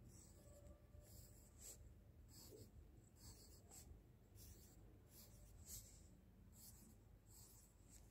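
Graphite pencil drawing on paper: a series of faint, short scratchy strokes, about one or two a second, as curls are drawn.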